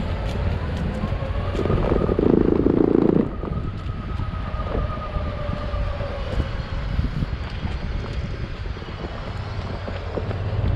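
Metroboard electric skateboard riding along, its motor whining in a thin, slightly wavering tone over a steady rumble of wheels on pavement. The rumble grows louder and rougher for about a second and a half near two seconds in.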